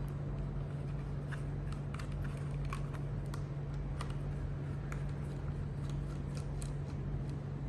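Small, irregular clicks and taps from a screwdriver and screws on the plastic body of a scale RC helicopter as it is taken apart, over a steady low hum.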